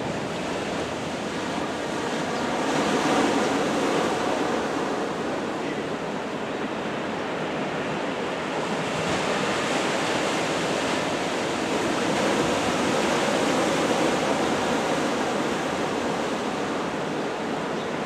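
Strong wind and rough sea: a steady rushing that swells a few seconds in and again through the middle.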